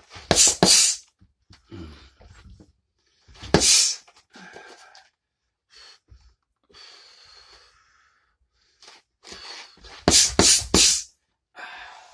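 Punches landing on a person's arm: two quick hits about half a second in, one near four seconds, and three rapid hits about ten seconds in, each a sharp smack, with fainter breathing between.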